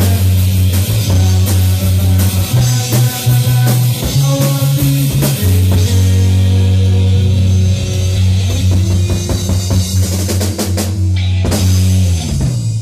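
Rock band playing live: electric guitar, a heavy bass line and a drum kit with cymbals. The song ends on a rapid run of drum hits and a last crash near the end.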